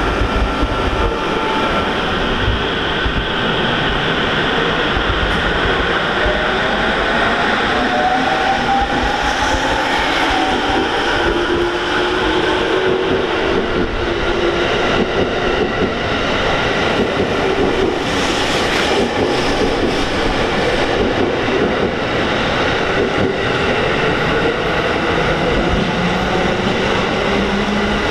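An electric commuter train, which the uploader takes for an E231 series, pulls out and accelerates past: its motor whine rises in pitch over the first half, then the cars roll by with faint wheel clacks.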